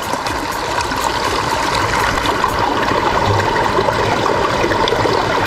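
Small brook's water rushing steadily, growing louder over the first couple of seconds.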